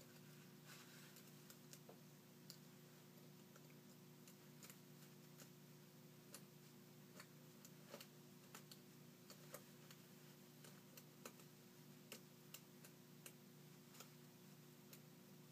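Faint, irregular small clicks of lock-picking tools working inside a Bilock lock cylinder, over a steady low hum.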